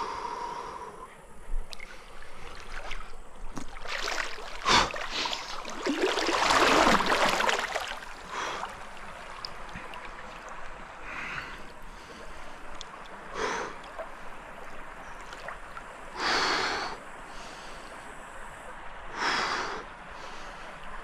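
River water splashing around someone moving through it, in irregular bursts with the longest about six seconds in, mixed with a person's short breaths and exhales.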